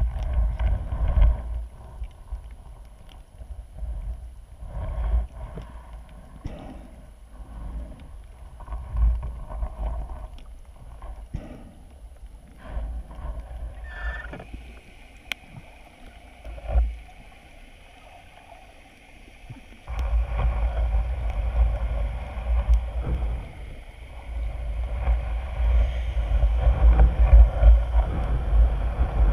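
Muffled underwater noise heard through a GoPro's waterproof housing: low rumbling surges of moving water with scattered knocks. The rumble turns louder and steadier about two-thirds of the way through.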